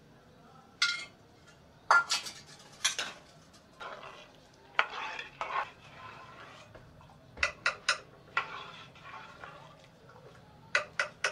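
Metal spoon stirring in a steel cooking pot and clinking against it and its lid: scattered single clangs, then two quick runs of three taps, about halfway through and again near the end.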